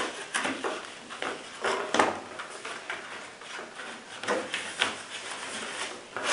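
Packaging being handled and opened to take out a nylon pocket holster: irregular rustles and small knocks, a few of them louder.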